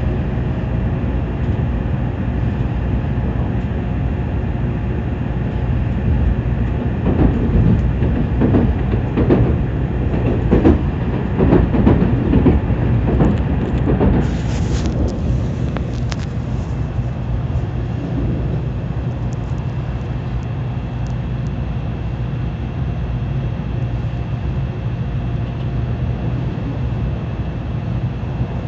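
Tokaido Shinkansen train running at speed, heard from inside the passenger car: a steady low rumble of wheels and running gear with a faint steady whine. It grows louder and rougher for several seconds in the middle, with a short high hiss soon after.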